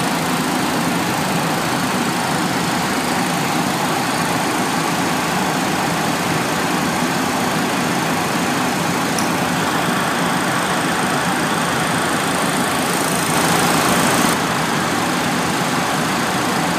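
Steady rushing noise of airflow and engines on a Boeing 737-800 flight deck during the final climb towards cruise altitude, with a slight swell about 13 seconds in.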